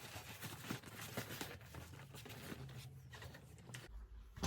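Faint rustling with scattered light clicks and taps as parts of a baby swing are handled during assembly.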